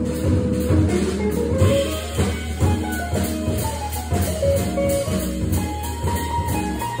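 Jazz trio playing live: electric guitar, organ and drum kit, with a phrase climbing in pitch over the first two seconds over steady cymbal and drum strokes.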